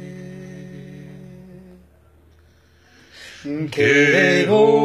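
Men singing a cappella: a held humming note fades away over the first two seconds, a brief hush follows, and the voices come back in singing at about three and a half seconds.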